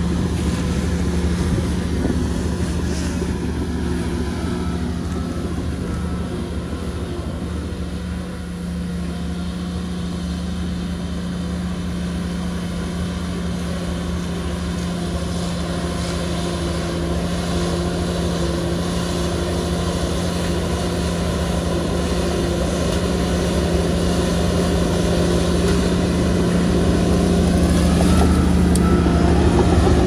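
Bulldozer's diesel engine running with a steady, constant drone; it dips slightly about eight seconds in, then grows gradually louder toward the end.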